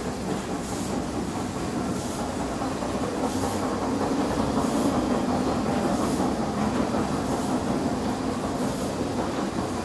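Steady low rumbling noise, with faint hissy scuffs a little more than once a second.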